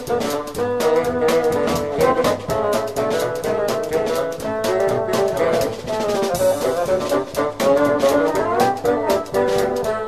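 Background music: jazz with brass horns playing the melody over a steady drum beat.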